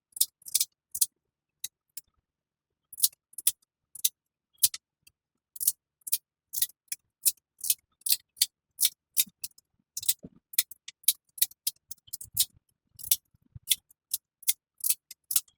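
Small, sharp snaps and clicks, two to three a second and irregular, as the thin resin support struts are broken off freshly printed and washed 3D-printed dental models by hand.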